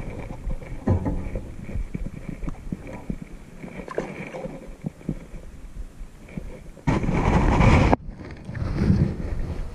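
Wind buffeting the microphone: an uneven low rumble with scattered small knocks, and one loud blast of about a second near the end that cuts off suddenly.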